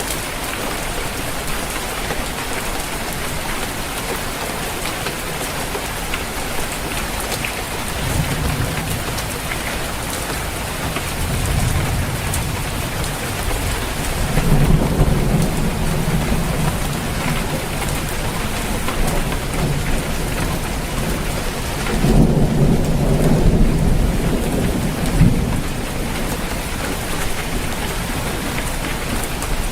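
Steady rain falling on a roof, with thunder rumbling low several times over it; the loudest rolls come about a third of the way in and again about three quarters of the way through.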